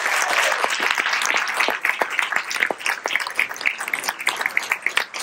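Audience applauding, the clapping thinning out to scattered separate claps toward the end.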